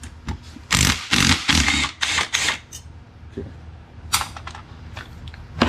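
Short clattering and rustling noises from tools and parts being handled during car repair work: four in quick succession, another about four seconds in, and a sharp click near the end. A faint steady hum runs underneath.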